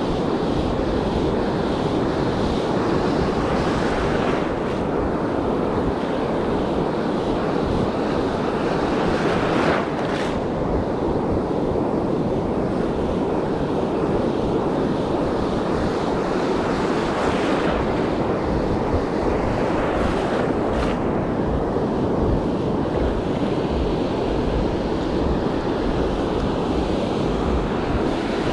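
Ocean surf breaking and washing up the beach in a steady wash of noise, with wind buffeting the microphone.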